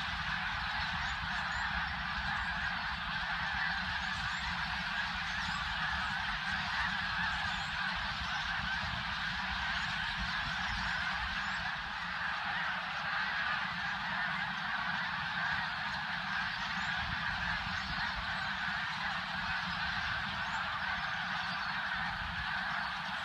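A huge flock of snow geese calling all at once as they fly: a dense, steady din of countless overlapping honks. A low rumble runs underneath.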